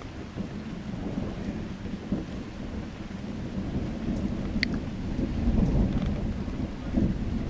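Thunder rolling: a low rumble that starts suddenly and swells over the first several seconds, then keeps on rumbling.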